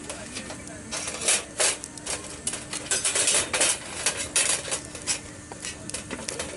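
Irregular clinks and clatter of metal objects being handled and knocked together, like cookware and utensils, with a faint steady hum beneath.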